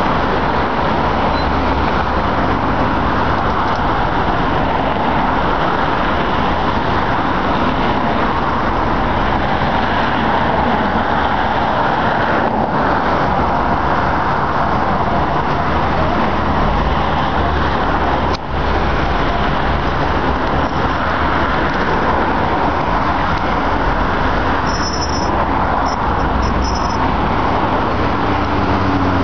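Steady car and road-traffic noise, even and unbroken, with no revving.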